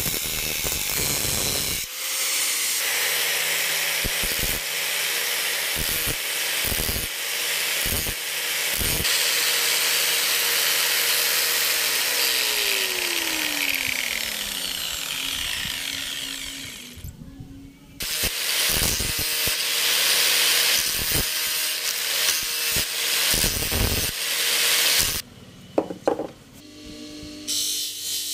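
Handheld angle grinder cutting into a coconut's fibrous husk and shell: a loud gritty hiss over a steady motor whine. About twelve seconds in, the motor's pitch falls as it spins down. After short breaks there is more grinding, and near the end a bench grinder's sanding wheel runs against a piece of coconut shell.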